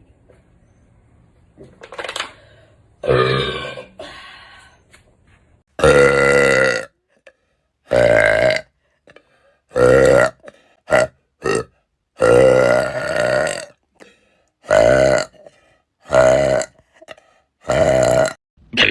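A young woman burping loudly, about ten burps one after another. Each lasts from under a second to about a second and a half, with short silent gaps between them.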